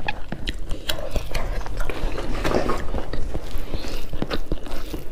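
Eating sounds: irregular clicks and smacks of chewing and biting, with fingers mixing rice and curry on the plate.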